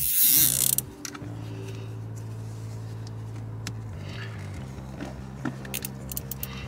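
A nylon zip tie pulled tight with a quick ratcheting zip in the first second, then a few light clicks of hands handling the plastic hose and tie, over soft background music.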